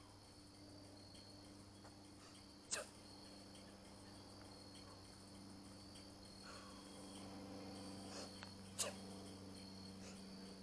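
Crickets chirping faintly and steadily over a low, even hum, with two sharp knocks about six seconds apart.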